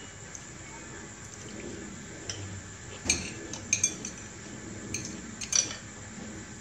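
Metal spoons and chopsticks clinking against ceramic plates and a soup bowl during a meal: a handful of short, sharp, irregular clinks, the loudest about three and five and a half seconds in.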